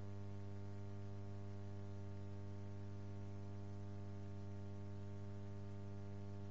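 Steady, unchanging low electrical hum with a buzzy edge.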